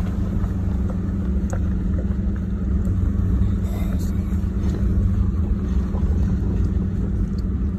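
Vehicle engine and tyres droning steadily on a woods trail, with a few faint knocks and rattles.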